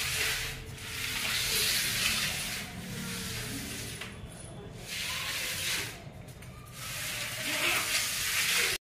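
Plastic basket scraping and sliding across a marble floor in a series of pushes, a hissing rasp broken by short pauses.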